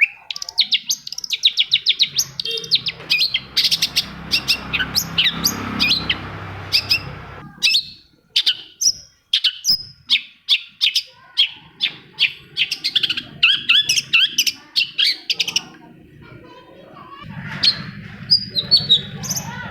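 Long-tailed shrike singing: fast runs of short, sharp chattering notes and quick slurred whistles, broken by brief pauses. A low steady hum sits underneath for part of it.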